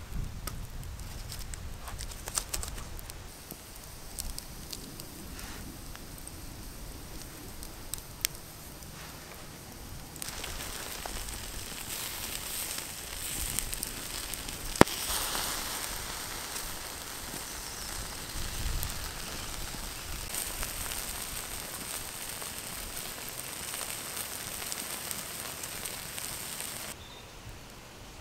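Wood campfire crackling, with scattered sharp pops. About ten seconds in, a steadier bright hiss joins, as food cooks on a grill over the flames.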